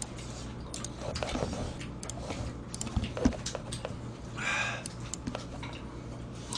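Scattered light clicks and taps over a low steady hum, with a brief rustle about four and a half seconds in.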